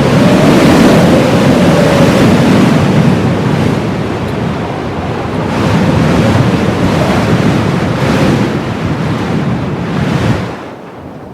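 Heavy blizzard wind gusting in loud waves of rushing noise, with a faint low whistle in the stronger gusts; about ten and a half seconds in it drops off sharply to a much quieter rush.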